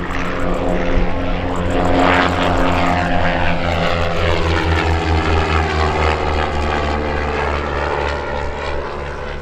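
Propeller-driven Rutan homebuilt aircraft flying past, its engine-and-propeller drone falling in pitch as it goes by, loudest in the middle and fading toward the end.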